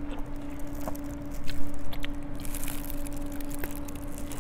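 Mouth sounds of eating a sticky, sauce-glazed yangnyeom fried chicken drumstick: wet chewing and bites into the meat, loudest about a second and a half in. A steady low hum sits underneath.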